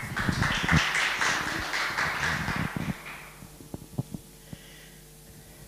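A small audience applauding for about three seconds, then fading out, followed by a few scattered knocks and taps.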